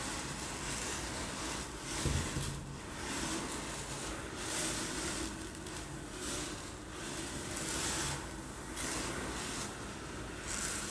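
Uncooked rice rolled back and forth in a container, making a hissing rush that swells and fades every second or two like waves breaking on a shore. A low knock sounds about two seconds in.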